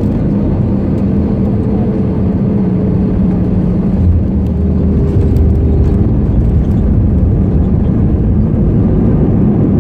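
Cabin noise inside an Airbus A320 on landing: a loud, steady rumble of engines and airflow with a faint hum. There is a brief bump about four seconds in, followed for a couple of seconds by a deeper hum.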